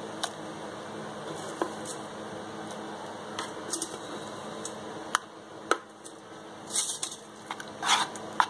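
A spoon tapping and clicking against a pan as litchi pulp is added to thickened milk, then a few rougher scraping strokes as it is stirred in near the end.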